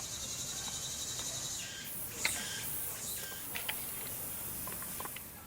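Steady high-pitched chorus of summer insects, with a few light clicks about two and three and a half seconds in.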